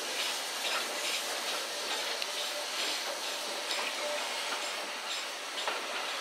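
Steam-hauled train, behind LMS Black Five 4-6-0 No. 45428, rolling slowly alongside a station platform, heard from a carriage window: a steady hiss with irregular clicks and knocks from the wheels and carriage.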